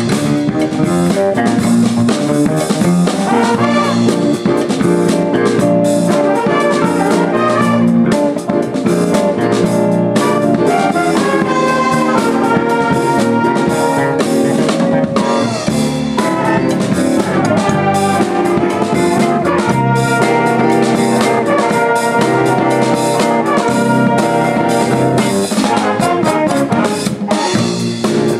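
Live band playing a funk instrumental: drum kit keeping a steady beat under electric guitar and bass guitar, with a horn-like melody on top.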